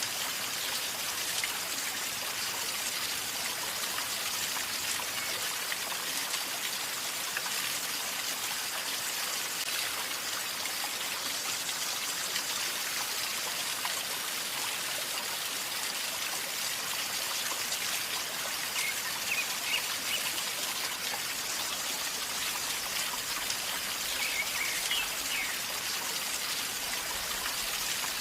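River flowing calmly with a steady gurgling rush of water. A bird calls briefly about two-thirds of the way in and again near the end.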